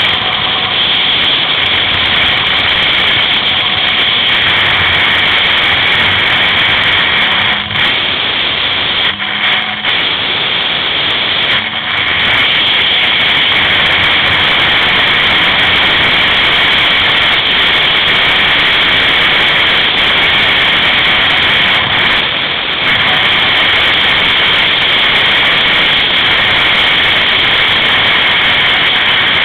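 Yamaha Apex snowmobile's four-stroke four-cylinder engine running at trail speed, mixed with rushing air in a loud, steady roar. The roar dips briefly a few times, between about eight and twelve seconds in and again near twenty-two seconds.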